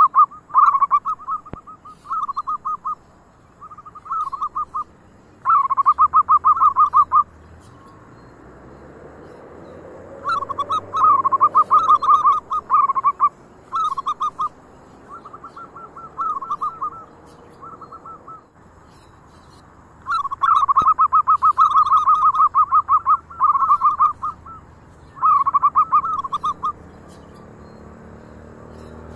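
Zebra doves (perkutut) cooing: repeated phrases of quick, stuttering coo notes, each phrase a second or two long, with short pauses between.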